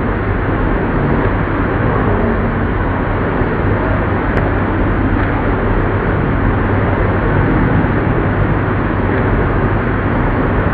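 Old lathe running steadily: a continuous mechanical drone with a steady low hum underneath.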